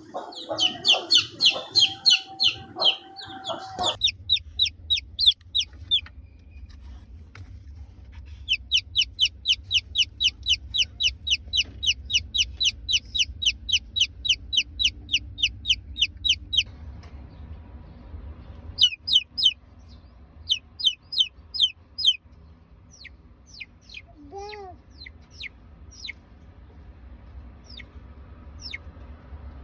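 Chicks peeping: long runs of short, high, falling peeps at about four a second, then scattered single peeps near the end. Lower chicken calls mix in during the first few seconds.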